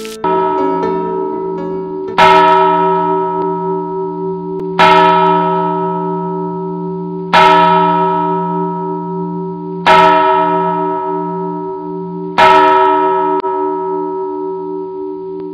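A deep bell tolling slowly, with a loud stroke about every two and a half seconds, five in all. Each stroke rings on and fades into the next.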